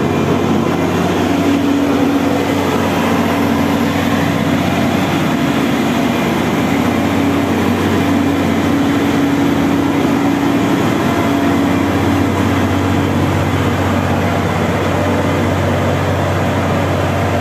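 Claas combine harvester's diesel engine running steadily as the machine drives slowly along at close range, a loud continuous drone with a steady low hum and a higher tone over it.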